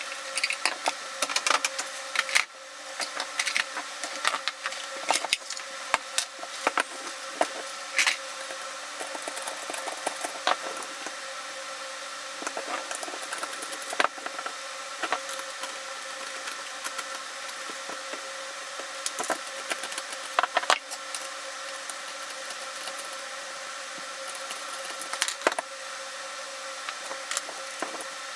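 Irregular clicks, taps and light knocks of tools and small parts being handled while an airsoft rifle's lower receiver is taken apart, over a steady faint hum.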